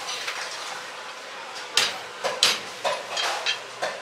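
Heavy cleaver chopping pork on a thick wooden chopping block: about half a dozen sharp chops in the second half, the first two about two seconds in the loudest, then lighter knocks.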